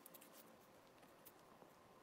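Near silence, with a few faint, scattered ticks of small metal parts being handled: an axle pin and cotter pin being fitted to a sprinkler's cast aluminium wheel.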